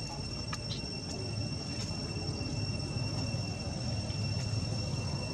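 Insects droning: a steady, high, unbroken buzz over a low background rumble, with a few faint clicks in the first two seconds.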